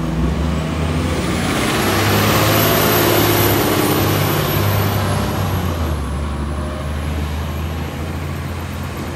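2006 Orion V transit bus pulling away and accelerating. The engine runs loud with a high whine that rises over the first couple of seconds, then fades as the bus drives off.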